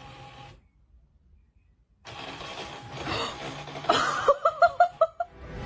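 Home inkjet printer working: its motors start up after a short pause and run with a mechanical whirring, then a quick run of about five short pitched whirs around four seconds in.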